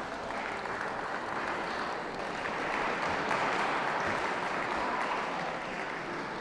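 Audience applauding steadily, swelling a little in the middle and easing off toward the end.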